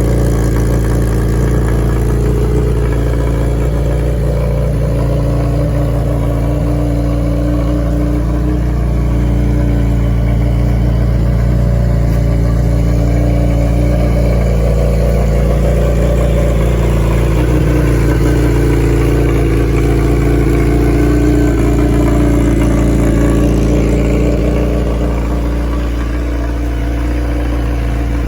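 Kawasaki ZX-12R's inline-four engine running steadily near idle through a Muzzy slip-on exhaust that has been cut about 6 inches shorter with all its packing removed, dipping slightly in level near the end.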